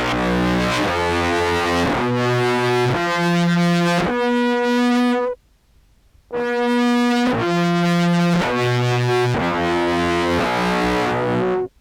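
Contrabass clarinet played through effects pedals, with fuzz distortion and a POG2 octave pitch shifter, giving a buzzy, distorted tone. It plays two phrases of several sustained notes stepping in pitch, with a break of about a second between them; each phrase cuts off suddenly.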